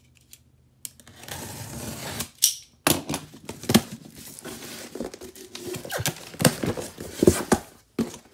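A box cutter slitting the packing tape along a cardboard box's seam, then the cardboard flaps being pulled open with a run of sharp crackles.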